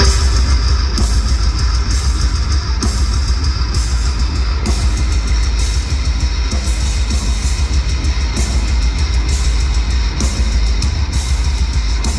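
A metal band playing live and loud: distorted guitars, a heavy low-end bass and a drum kit, with cymbal hits landing about once a second.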